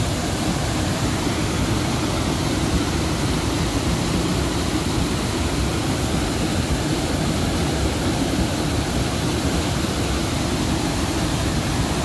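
Rushing water of a waterfall pouring over rock ledges, a loud, steady roar with no letup.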